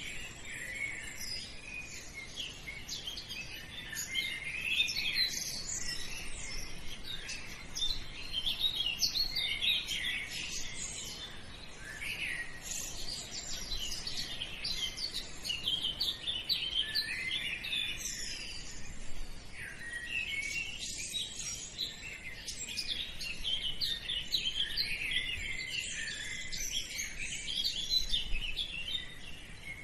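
A chorus of many small birds chirping, with short high calls overlapping one another without a pause.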